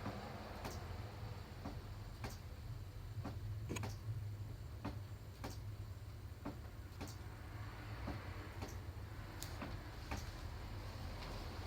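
Rocking chair rocking at a steady pace, giving a short creaking click on each swing, a little more than one a second, over a steady low hum.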